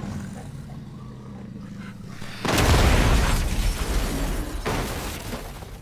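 A car hits concrete from a fall: a sudden loud crash and boom about two and a half seconds in, then a few more thuds and a long rumbling fade. Before the impact there is only a faint low drone.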